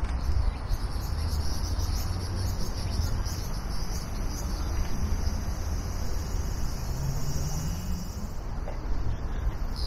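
Insects singing: a high, pulsing buzz that fades out about eight and a half seconds in, over a steady low rumble.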